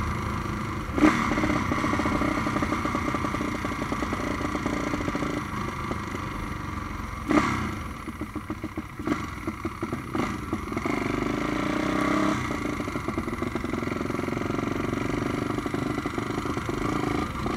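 Tuned Honda Tornado single-cylinder four-stroke motorcycle engine, bored to 350cc, under way with the revs rising and falling. Two short loud pops come about a second in and at about seven seconds. Between about eight and ten seconds it falls to slow, separate firing beats off the throttle, then pulls again.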